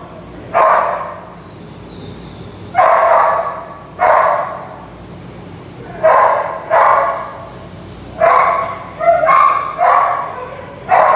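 A dog barking repeatedly, about nine barks at uneven intervals, some coming in quick pairs.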